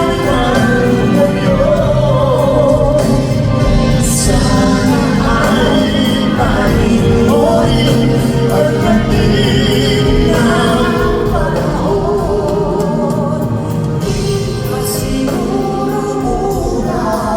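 Live concert music: singing over a band accompaniment, steady and loud throughout.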